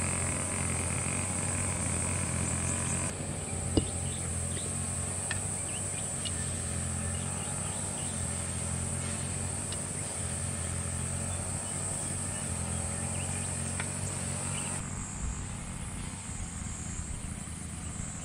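Motorised grass cutter (brush cutter) engine running steadily in the background, with a high, steady insect drone over it. A single sharp knock comes about four seconds in, followed by a few light clicks.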